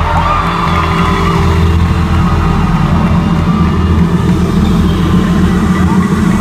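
Live concert music through an arena sound system, with heavy, sustained bass.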